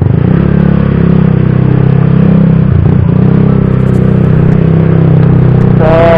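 Motorcycle engine running steadily under way, heard from the rider's seat, its note dipping briefly about three seconds in.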